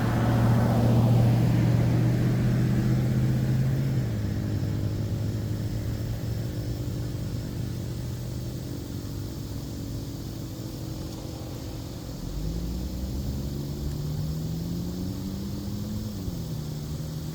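Vehicle engine noise. A loud passing vehicle is strongest in the first few seconds and steps down about four seconds in. Later an engine's pitch rises for a few seconds and then drops sharply near the end, as a car does when it accelerates and shifts gear.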